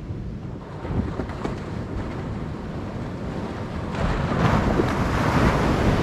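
Ocean surf breaking on the shore, with a wave washing in and swelling loudest about four seconds in, and wind buffeting the microphone.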